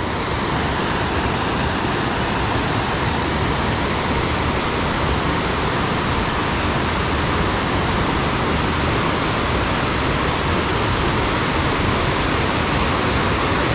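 Steady rush of river water pouring over rocky rapids and small cascades, slowly getting a little louder.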